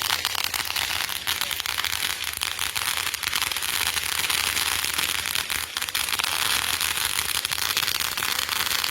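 A consumer firework giving off a dense, continuous crackle of rapid tiny pops, steady and with no single big bang.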